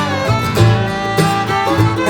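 Background bluegrass music with fiddle and acoustic guitar.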